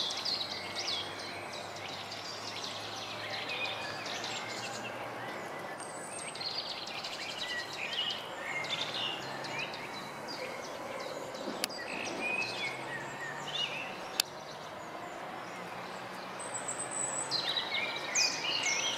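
Several small songbirds chirping and singing over a steady outdoor background hiss, with two sharp clicks a couple of seconds apart near the middle.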